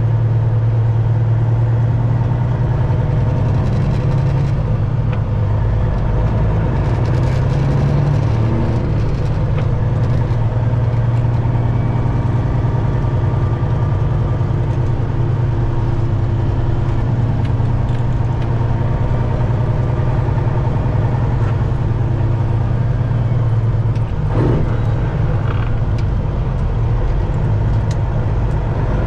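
Detroit Diesel engine of a Peterbilt 379 semi truck running steadily with a deep, even drone.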